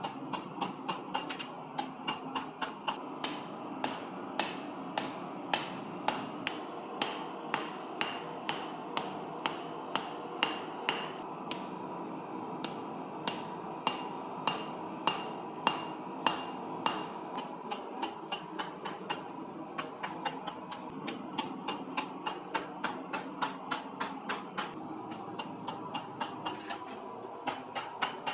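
Hammer blows on steel over an anvil, forging a steel ball: a steady run of sharp ringing strikes, about two to three a second, faster near the end, with a short pause about halfway. A steady hum runs underneath.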